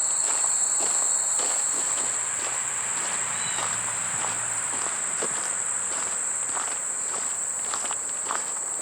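A steady, high-pitched chorus of insects, likely crickets, trilling without a break, with footsteps on a trail scuffing along at about two a second.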